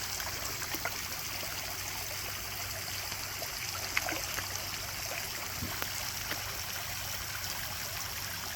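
Garden pond fountain running, water splashing and trickling steadily into the pond, with a faint tick about four seconds in.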